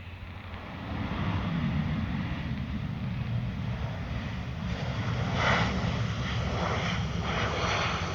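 Passenger aircraft engines running, a rumbling noise that swells about a second in, with rushing gusts in the upper range from about halfway through.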